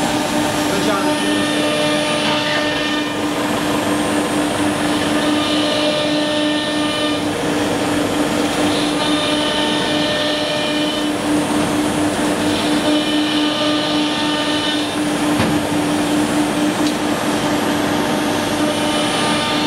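1325 ATC CNC wood router running: a steady spindle hum over a dense hiss. A brighter, higher hiss swells and fades about every three and a half seconds.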